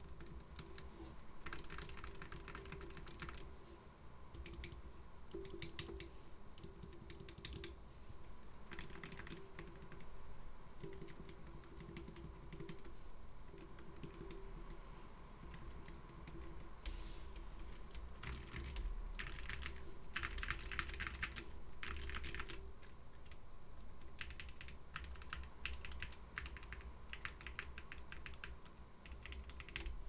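Typing on a GK61 60% mechanical keyboard with Gateron optical Black linear switches, Whale keycaps and lubed, clipped stabilizers: continuous keystroke clacking, with several spells of fast typing.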